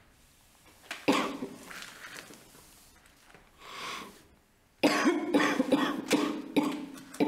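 A woman's non-speech vocal outbursts. There is one sharp voiced burst about a second in, a long breath, then a rapid, jerky run of voiced bursts from about five seconds in, like a coughing or sobbing fit.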